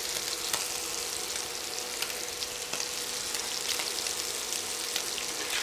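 Scallops frying in hot coconut oil in a cast-iron skillet: a steady sizzle with scattered sharp crackles and pops.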